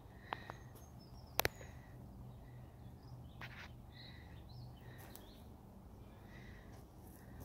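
Quiet outdoor ambience with short, repeated bird calls and a steady low rumble. Two sharp clicks sound in the first second and a half, the second one the loudest.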